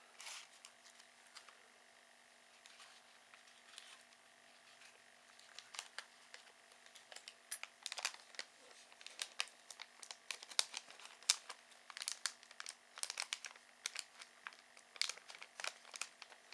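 Packaging crinkling and tearing as a new laptop CPU is unwrapped, sparse at first, then dense irregular crackling from about six seconds in.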